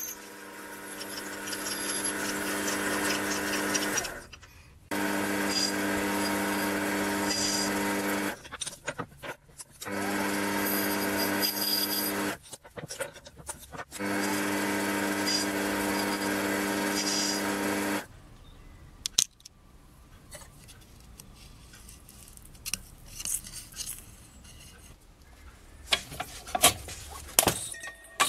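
Small bench metal lathe running in four separate runs of a few seconds each, its motor giving a steady hum, while it drills and turns a brass rod. In the last ten seconds the lathe is stopped and there are only light clicks and knocks of metal parts being handled.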